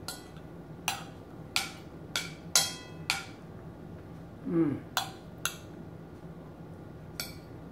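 Metal cutlery clinking and scraping against a dinner plate while food is scooped up, about eight short sharp clinks, some ringing briefly. A short low hum of the voice comes about halfway through.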